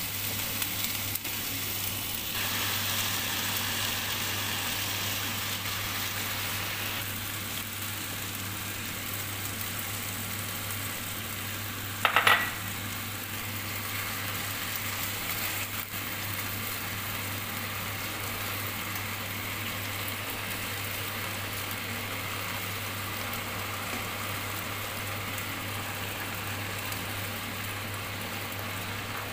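Onions, garlic and julienned potatoes sizzling in hot oil in a nonstick frying pan, later with noodles and dark sauce, stirred with a spatula. A short loud burst about twelve seconds in.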